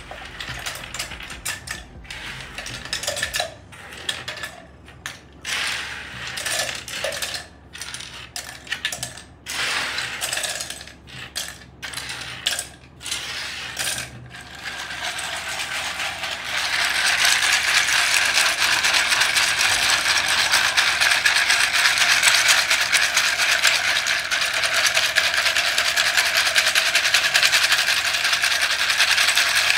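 Loose plastic keycaps clattering in separate bursts, then rattling continuously and louder from about halfway through.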